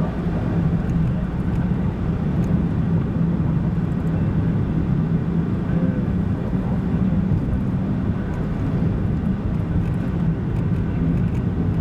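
Steady drone of a car's engine and tyres on the road while driving, heard from inside the car.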